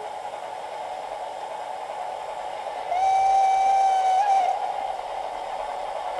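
Garden-scale model steam locomotive (HSB 99 5901) sounding one steady whistle blast of about a second and a half, about three seconds in, with a small upward flick in pitch just before it stops, over a steady hiss.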